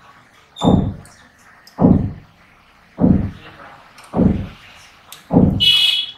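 Dull thumps repeating at a steady pace, about one every second and a quarter, with a short high-pitched squeak near the end.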